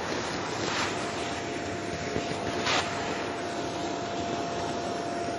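Vacuum cleaner running steadily on a wooden floor with a constant whine. Two brief knocks come through, about a second in and again just before three seconds.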